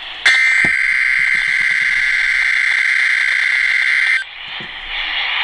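A NOAA Weather Radio SAME data burst: a loud, raspy two-tone digital warble lasting about four seconds, part of the Emergency Alert System header for a required weekly test. It cuts off suddenly into radio hiss.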